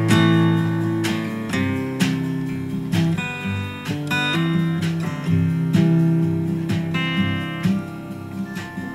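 Acoustic guitar strumming chords in an instrumental break of a folk song, with a strong strum about once a second.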